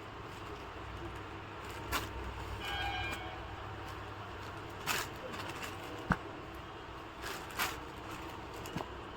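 Steady low background rumble with four short crackles and a brief pitched sound about three seconds in.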